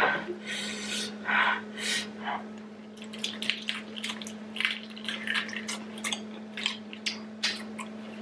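Wet smacking and chewing of someone eating saucy prawns, with the clicks and squelches of shells being pulled apart, and a few loud breaths in the first two seconds. A steady low hum runs underneath.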